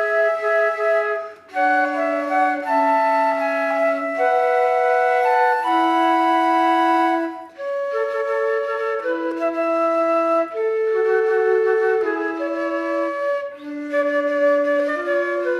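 A trio of flutes playing a slow melody in three-part harmony, mostly held notes, with brief gaps between phrases about one and a half, seven and a half and thirteen and a half seconds in.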